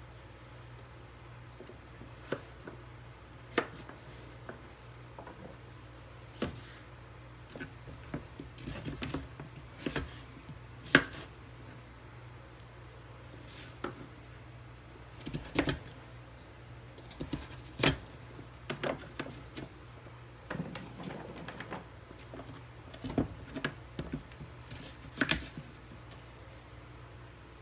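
Kitchen knife cutting through raw butternut squash and knocking down onto a plastic cutting board: irregular sharp knocks, some single and some in quick clusters. A steady low hum runs underneath.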